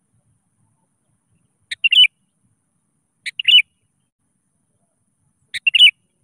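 Sooty-headed bulbul (kutilang) calling: three short phrases, each a brief note followed by a quick warble, a second or two apart.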